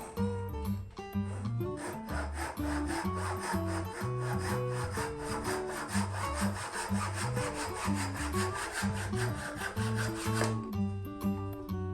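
A saw cutting through wood in quick, even back-and-forth strokes, stopping suddenly near the end, over background music.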